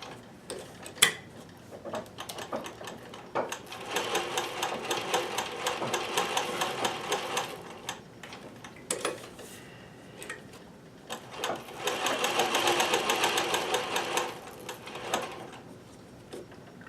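Consew sewing machine stitching in two runs of a few seconds each, a fast even rattle, with single sharp clicks and knocks in the pauses before, between and after them.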